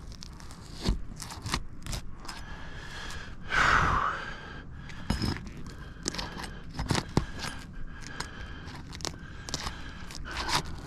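Asphalt roof shingles being worked loose with a tool to break their adhesive seal: scattered clicks, taps and scrapes, with one louder rasping scrape about three and a half seconds in. The sealed shingles are tearing rather than releasing.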